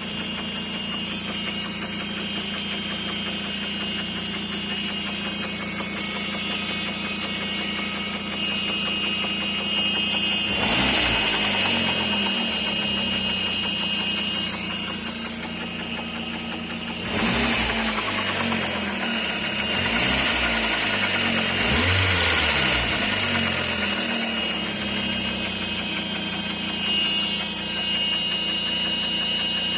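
Skoda Octavia Tour's 1.8T (AGU) turbocharged four-cylinder petrol engine idling steadily, then revved up and down repeatedly from about ten seconds in, with a knock from the engine whose cause the owner is asking about.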